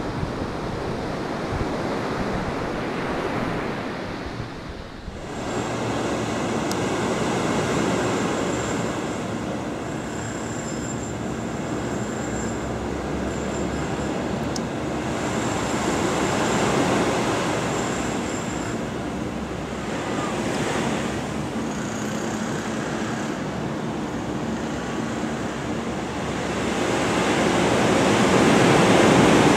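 Ocean waves and surf. About five seconds in the sound cuts to a different recording of the sea, with faint steady high tones over the wash, and it swells louder near the end.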